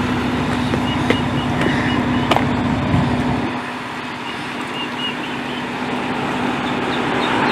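A motor vehicle's engine runs steadily with a low hum and rumble, and the rumble falls away about halfway through. Faint short high chirps come in two brief runs.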